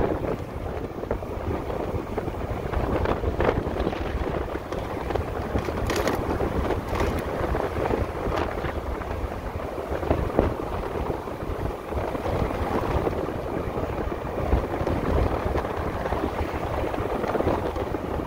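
Wind rushing and buffeting over the microphone while riding an electric motorcycle at speed, with road noise underneath and a few short knocks.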